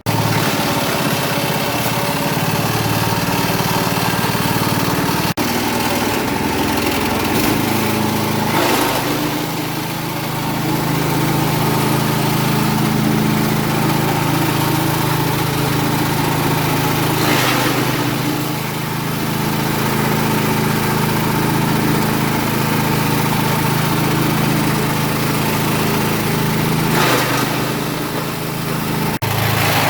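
A grass and peanut-stover grinding machine running steadily with a loud mechanical hum. Three brief swells of harsher noise come at roughly nine-second intervals.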